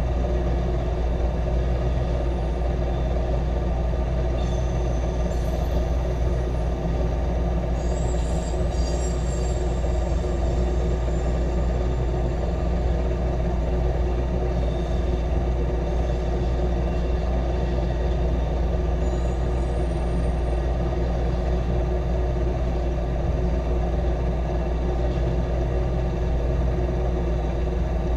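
Intermodal freight train's trailer-carrying cars rolling past a grade crossing: a steady rumble, with brief high wheel squeals a few seconds in and again about twenty seconds in.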